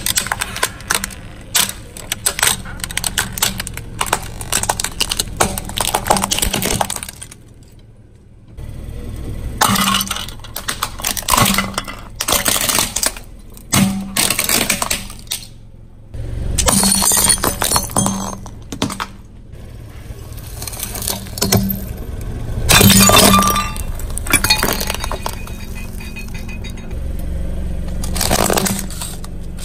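Plastic objects crushed under a rolling car tyre: repeated runs of cracking, snapping and crunching plastic, with a couple of short lulls and the loudest crunch about two-thirds of the way through.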